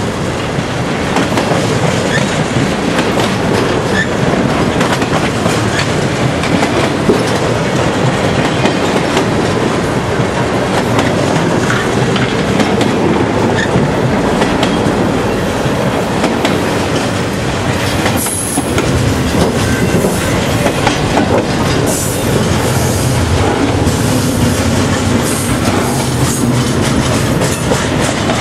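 Intermodal freight train's double-stack well cars rolling slowly past: a steady rumble and clatter of steel wheels over the rail joints. Brief high wheel squeals come now and then in the second half.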